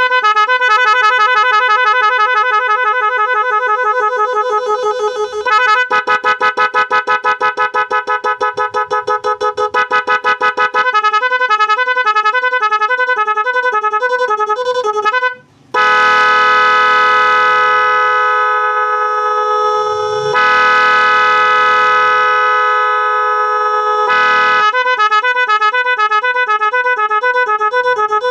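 Electric pressure horn sounding continuously and cycling through its tone patterns: a warbling two-note alternation, a stretch of rapid pulsing, then, after a brief break just past halfway, a long steady multi-note blare, with the warble returning near the end.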